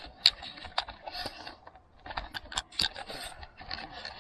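Irregular sharp clicks, knocks and short scrapes of handling as things are moved about and set down, several a second with brief gaps.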